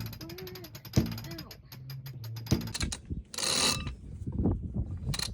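Sailboat winch being cranked by hand under load, hoisting a crew member up the mast: its pawls click rapidly, with a heavier clack about once a second for the first two and a half seconds. A short rushing noise follows about three seconds in.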